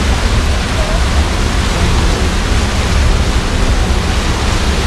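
Steady rushing hiss of a steaming hot spring, boiling water welling up and running out between rocks, with a deep rumble underneath.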